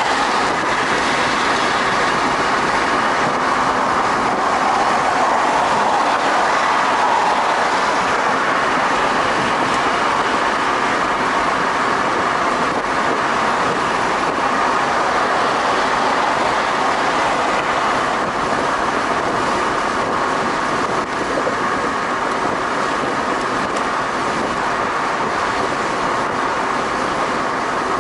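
Steady tyre and road noise heard inside a car cruising at freeway speed on a concrete highway.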